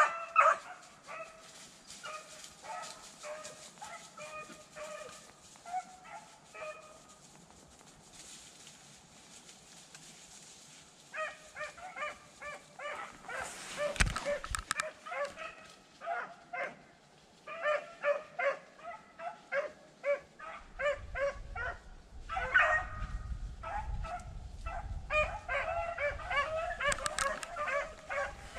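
Rabbit beagles baying in quick, repeated cries as they run a rabbit. The cries fade out for a few seconds, then pick up again and grow thicker toward the end. A single sharp knock comes about halfway through.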